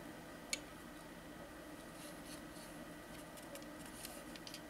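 Faint handling noise: one sharp click about half a second in, then a scatter of small light ticks, over a steady low hiss with a thin steady whine.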